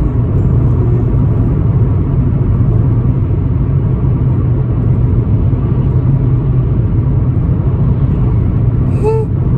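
Steady road and engine rumble inside a moving car's cabin. A short voice sound comes near the end.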